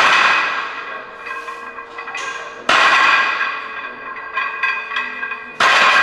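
Plate-loaded barbell clanging down onto a power rack's pins between heavy rack-pull reps. Three loud metallic clangs about three seconds apart, each ringing on, with lighter clinks of the plates in between.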